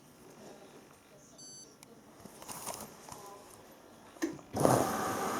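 A Hoover Dynamic Next washing machine is being started: a short electronic beep about a second in, then a few faint clicks. Near the end a sudden steady rushing hiss begins, which is water flowing in as the machine starts filling.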